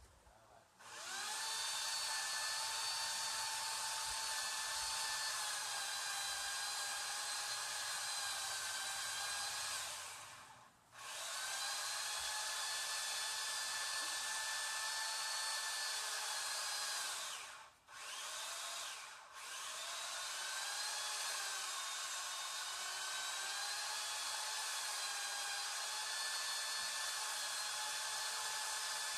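A high-speed electric power tool motor runs with a steady high-pitched whine. It cuts out briefly about ten seconds in and twice more near eighteen seconds, restarting each time.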